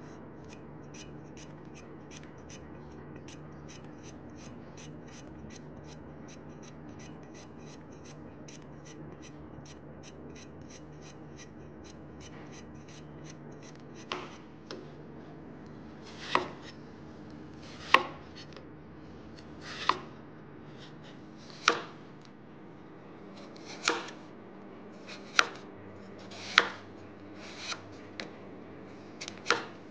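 Kitchen knife chopping on a cutting board. For the first half there is only a faint, rapid ticking about three or four times a second, then from about halfway single loud chops come every second or two. A steady low hum runs underneath.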